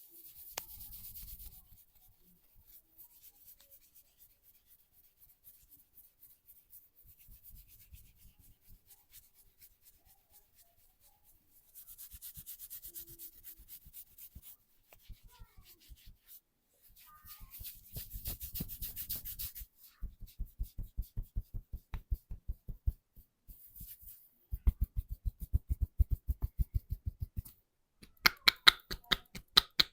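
Hands massaging: soft rubbing strokes over skin and hair, then, from about two-thirds of the way in, quick rhythmic slapping and tapping strikes of percussive hand massage, getting louder near the end.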